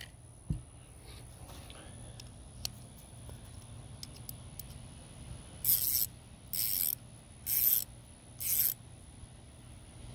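Ratcheting wrench worked in four short strokes, each a quick run of ratchet clicks, about a second apart, after a single small knock.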